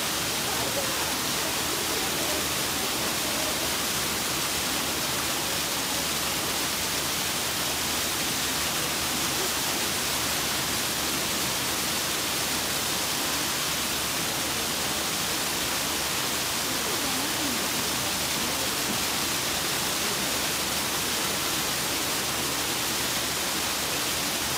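Steady rush of running water, with faint voices murmuring underneath.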